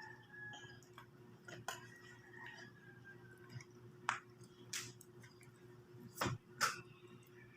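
Cutlery clicking against plates during a meal: a few scattered light clicks, the louder ones in the second half, over a faint steady hum.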